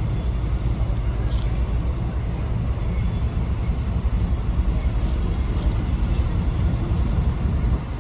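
Freight train rolling past with a steady low rumble of wheels and wagons.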